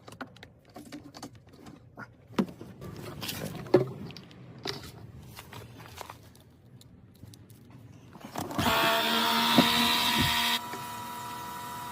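Scattered light clicks and knocks of hand work, then about eight and a half seconds in an electric motor starts with a loud, steady whine and hiss. After about two seconds it drops suddenly to a quieter steady whine that keeps running.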